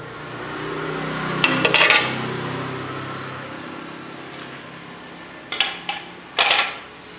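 A metal snake hook clattering against a glass aquarium: a short cluster of hard knocks about one and a half seconds in, and two more near the end. Under them a low hum swells and then fades away.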